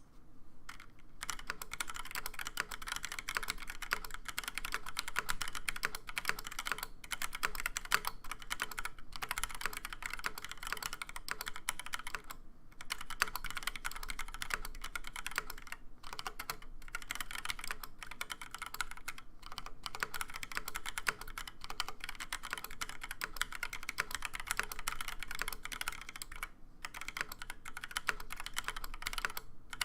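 Fast continuous typing on a TX75 mechanical keyboard with Gateron Black linear switches on a brass plate and Cherry doubleshot ABS keycaps, a dense stream of key clacks with brief pauses every few seconds.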